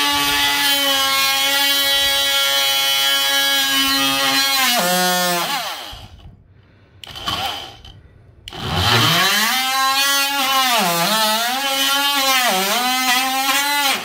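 Oscillating multi-tool cutting drywall around an outlet box: a steady buzzing motor whine that winds down about five seconds in, gives a short blip, then runs again a few seconds later, its pitch dipping twice as the blade bites into the board.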